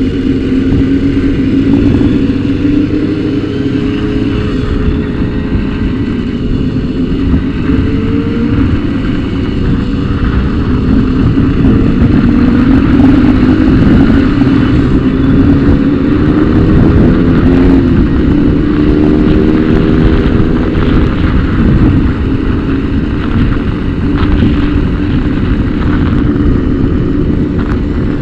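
Motorcycle engine running under way at road speed, its pitch climbing several times as it accelerates through the gears, mostly in the middle stretch.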